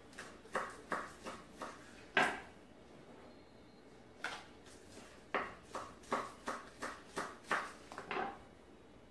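Kitchen knife chopping green onions on a wooden counter: a series of sharp knocks. There is a quick run of strokes, a louder single knock, a pause, then a steady run of about three chops a second.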